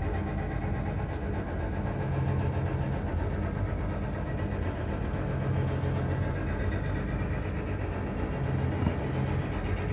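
Sand dredger's engines running with a steady low drone, over the rushing splash of sand-and-water slurry pouring from the discharge pipe into the barge's hold.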